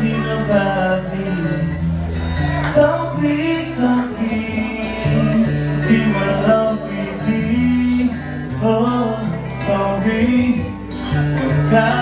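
Male vocalist singing live into a microphone, accompanied by acoustic guitar, with steady held bass notes underneath.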